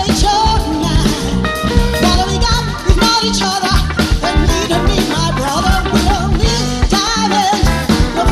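A live soul-disco band playing, with a woman singing lead over drum kit and keyboards, on a steady dance beat.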